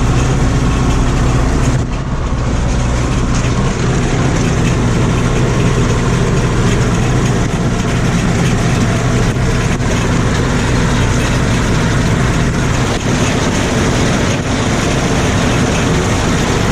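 Tractor engine running steadily under load while pulling a hay mower through alfalfa, with the mower's steady mechanical hiss and rattle over the engine drone. The sound dips briefly about two seconds in.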